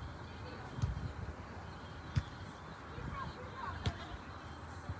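Volleyball contacts in a beach volleyball rally: three sharp slaps of hands or forearms on the ball, roughly a second and a half apart, over steady background noise.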